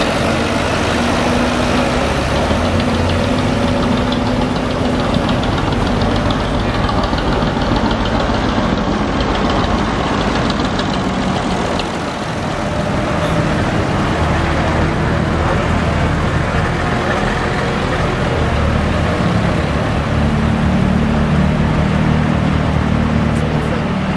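Diesel engines of large modern farm tractors running as they drive slowly past one after another: a steady low engine drone, with a brief drop in level about halfway.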